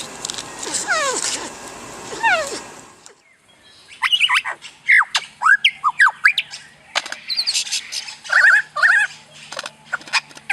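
A bird calling: a few falling whistled notes, then, after a short break about three seconds in, a quick run of short chirps, squawks and whistles.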